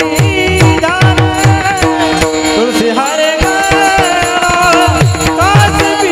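Marathi devotional kirtan music: a panchpadi sung by a male voice over a steady held drone, with hand-drum strokes whose bass falls in pitch and jingling cymbals keeping the beat. The drum drops out briefly about halfway, then resumes.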